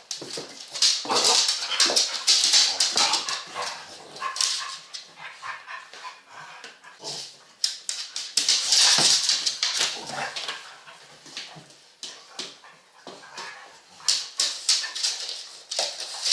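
Dogs playing and scuffling on a dog bed: dog vocal sounds mixed with rustling of bedding and cloth. The sound comes in loud noisy bursts about a second in, again around eight to ten seconds, and near the end.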